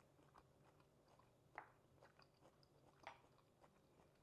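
Faint chewing of a mouthful of raw zucchini salad, with small soft crunches, the clearest about a second and a half in and again about three seconds in.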